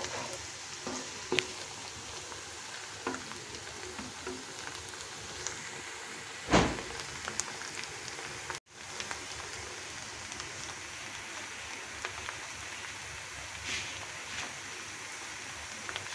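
Finely chopped onions sizzling steadily in hot oil in a wok, being lightly browned, with a few spoon scrapes and clicks in the first seconds. A single loud knock about six and a half seconds in, and a momentary break in the sound a little later.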